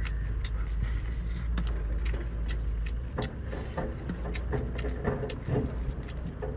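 Cooked seafood shell being cracked and picked apart by hand, a run of sharp crackles and clicks, with wet chewing and lip smacks from about halfway through. A steady low rumble runs underneath.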